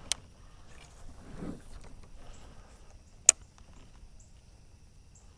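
Handling noises aboard a kayak: a sharp click at the start and a much louder sharp click or knock about three seconds in, with soft rustling between.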